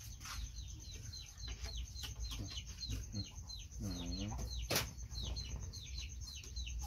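Chickens peeping: a steady run of short, high, falling peeps, about three a second, with one lower call about four seconds in. A single sharp knock comes just before five seconds.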